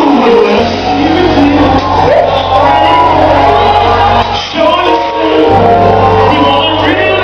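Gospel song with singing voices and a lead vocal shouting out over a steady bass line, played loud.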